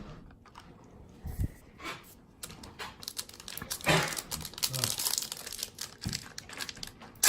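The wrapper of a baseball card pack being torn open and crinkled. The crackling is light at first and gets busy and dense from about a third of the way in.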